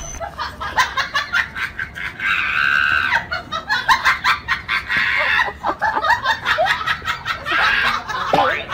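People laughing in quick, choppy bursts, with a brief shriek a little over two seconds in.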